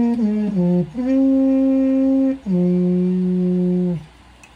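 Trumpet playing a slow phrase: a few notes stepping down, a long held note, then a lower held note that ends about four seconds in, closing the piece.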